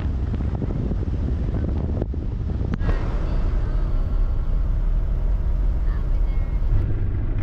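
Steady low rumble of a motorhome driving on the road, engine and road noise, changing abruptly a couple of times.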